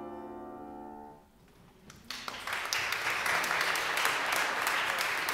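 A grand piano's final chord rings and fades out about a second in. After a short hush, audience applause starts about two seconds in and carries on steadily.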